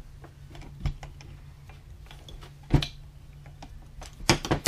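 Small metal clicks and taps as a rusted nut and sprocket are worked off a small brushed DC motor's shaft with slip-joint pliers, with a few sharper knocks, the loudest cluster near the end.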